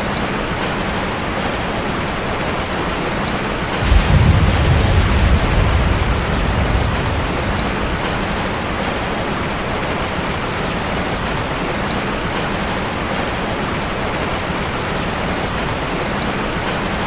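Steady rain falling on leaves. About four seconds in, a deep rumble of thunder starts suddenly and fades away over about three seconds.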